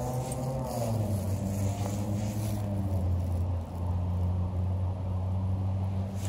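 An engine running with a low, steady hum, its pitch rising and falling slightly in the first second or so.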